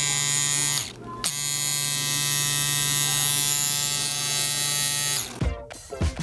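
BRONC V2 rotary cartridge tattoo pen running with a steady electric buzz as its needle dips into black ink; it stops briefly about a second in, runs again for about four seconds, then cuts off. Rhythmic music comes in near the end.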